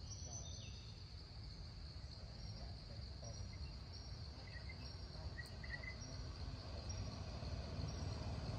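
Steady high-pitched drone of insects in the trees, with a few short bird chirps midway and a low motor rumble growing louder near the end.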